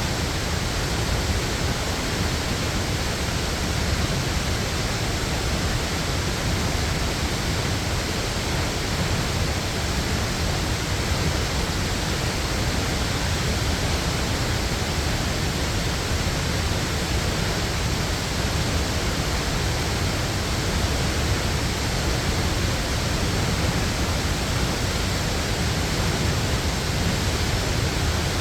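Waterfall: the steady, unbroken rush of falling water, deep and even throughout.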